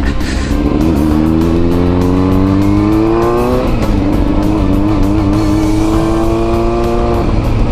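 Kawasaki ZRX400 inline-four motorcycle engine accelerating, its pitch climbing, then dropping at a gear change about three and a half seconds in and climbing again more slowly before easing off near the end.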